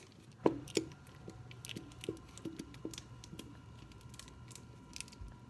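Irregular light clicks and taps of plastic slime-making supplies being handled, with two sharper knocks about half a second in and a run of small ticks after.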